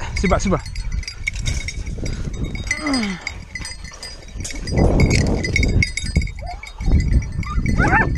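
Hare-hunting hounds whining and yelping in short falling cries, with more yelps starting near the end, over a steady tinkle of bells on their collars. A loud rush of wind or brush rustle about five seconds in.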